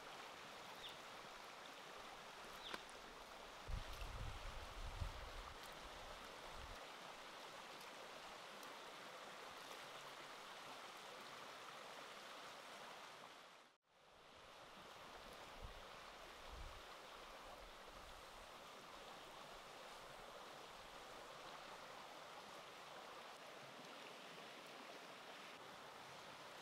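Steady, even rushing noise like running water, with a few low thumps about four to five seconds in. The sound fades out and back in just past the middle, then more low thumps follow.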